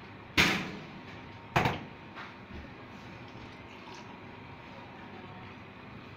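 Two loud, sharp clatters about a second apart, each fading quickly, from stainless steel teh tarik mugs and pitchers being handled on a steel counter, followed by a few fainter knocks over a steady background noise.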